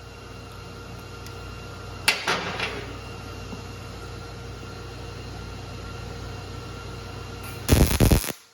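Welder laying two short stitch welds on thin sheet steel: a crackling burst about two seconds in and a louder one near the end, over a steady electrical hum that stops right after the second weld.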